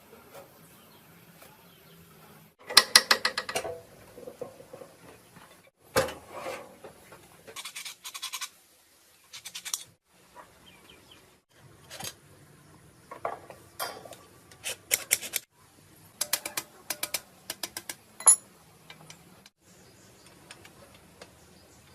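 Short bursts of rapid clicking and clattering from metal tools and parts being handled, the loudest about three seconds in, a single sharp knock about six seconds in, and another near the end.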